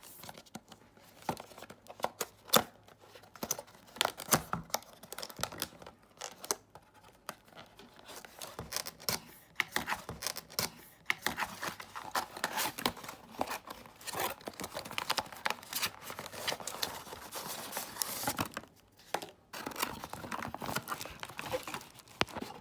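Product packaging being opened by hand: irregular crinkling, tearing and clicking, busier in the second half.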